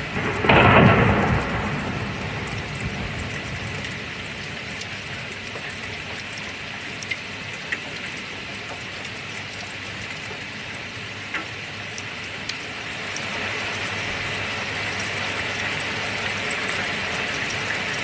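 Thunderstorm: steady rain with a loud thunderclap about a second in, its rumble fading over the next few seconds. A few single drops stand out sharply later, and the rain grows a little louder near the end.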